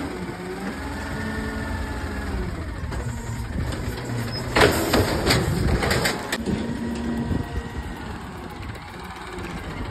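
Diesel engine of an automated side-loader garbage truck running and revving up and down, with a few loud clunks about halfway through.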